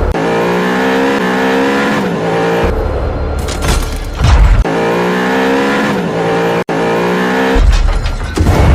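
Background music: a repeating melody over heavy bass.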